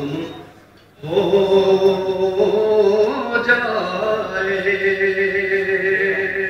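A man's solo voice chanting a naat, a devotional poem in praise of the Prophet Muhammad, through a microphone. After a short break about a second in, one long drawn-out melodic phrase follows, with held notes and bending pitch.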